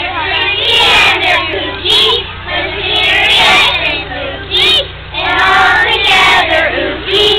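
A group of young children singing together in unison, in short phrases broken by brief pauses.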